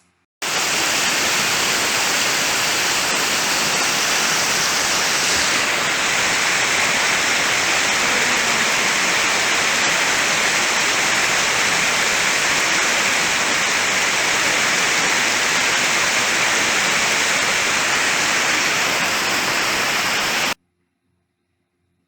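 Steady rush of a waterfall close to the microphone, falling water without any tone. It starts abruptly just after the beginning and cuts off suddenly near the end.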